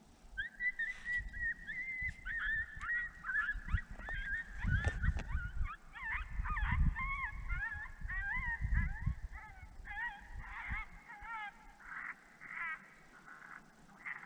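Coyote pup distress sound played from a Lucky Duck Rebel electronic predator call: a continuous run of high, quickly wavering squeals and yelps starting about half a second in. A low rumble on the microphone runs through the middle.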